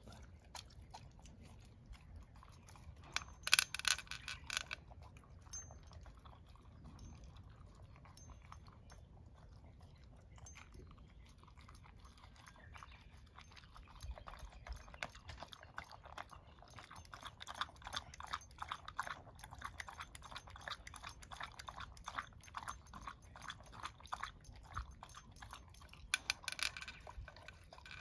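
A dog eating from a plastic bowl, chewing and crunching its food in quick small clicks that grow thicker through the second half, with louder bursts of crunching about three seconds in and again near the end.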